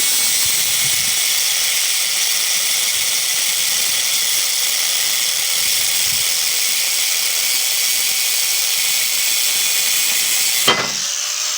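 Angle grinder with a cutting wheel cutting into a large electric motor: a steady, hissing grind. Near the end a sharp pop as the cut piece releases and springs open, then the grinding drops away.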